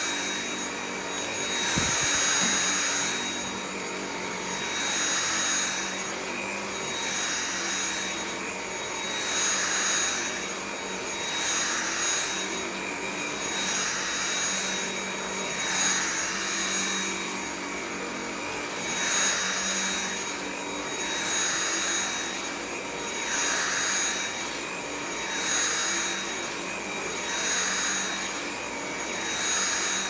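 Stick vacuum cleaner running on carpet: a steady high motor whine over rushing airflow. The rush swells and fades about every two seconds as the floor head is pushed and pulled across the pile.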